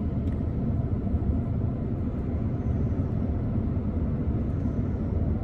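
Steady low rumble of a car heard from inside the cabin: engine and road noise in slow traffic.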